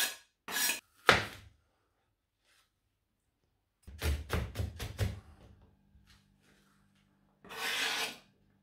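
A knife scraping diced turkey ham off a plastic cutting board into a frying pan, then a quick run of knife chops through a red onion on the board, about half a dozen sharp knocks. Near the end, one scrape of chopped onion from the board into the pan.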